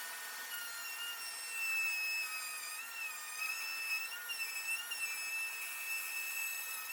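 A small power tool's motor running at high speed with a steady high-pitched whine that wavers slightly in pitch.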